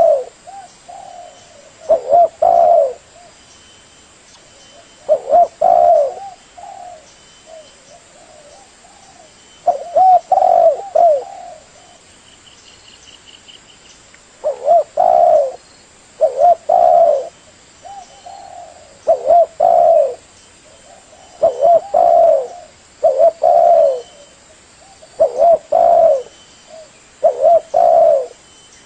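Spotted dove cooing: low phrases of a few notes each, repeated every one to three seconds, with a longer pause early on. A faint high trill sounds about halfway through.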